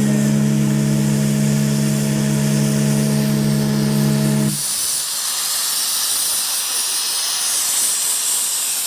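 A ship's steam whistle sounds one long, deep, steady chord of several notes, then cuts off sharply about four and a half seconds in, leaving a steady hiss of steam.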